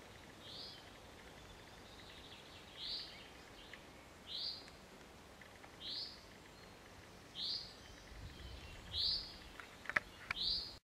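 A bird giving one short call over and over, about every second and a half, seven times, the calls growing a little louder. A couple of sharp clicks near the end.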